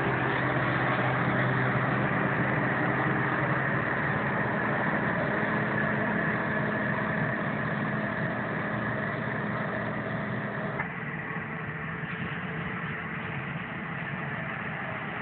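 Claas Jaguar 840 forage harvester chopping maize, with a tractor pulling the trailer alongside: a steady engine drone with a high whine, dropping in level about eleven seconds in as the machines draw away.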